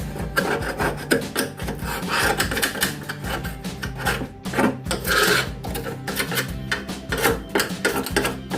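Rapid rasping strokes of hand-scouring the rusty, flaking-paint metal of an automatic washing machine's cabinet, stripping it for repainting.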